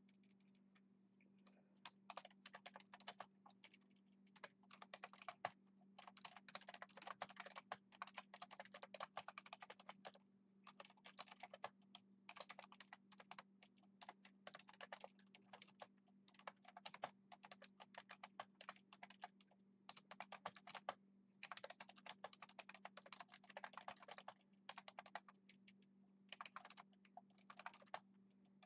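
Typing on a computer keyboard, faint, in quick bursts of keystrokes with short pauses, starting about a second and a half in, over a steady low hum.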